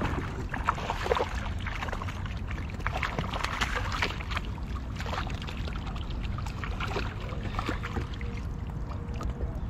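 Water lapping and sloshing around a fishing kayak, with a run of small splashes and clicks in the first half as a hooked fish is brought alongside to the landing net.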